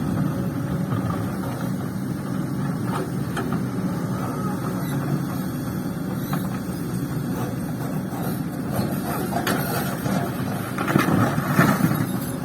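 Heavy diesel engine of an excavator and dump truck at work, running steadily with a low hum, a few faint knocks, and a louder stretch near the end.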